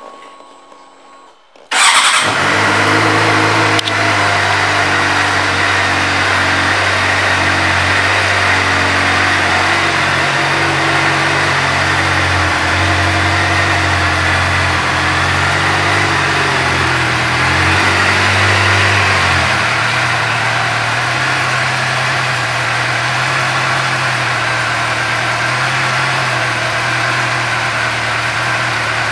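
A 2008 Suzuki GSX-R600's inline-four engine, fitted with an aftermarket exhaust, starts suddenly about two seconds in and then idles steadily. Its note shifts a little between about ten and twenty seconds in, then settles.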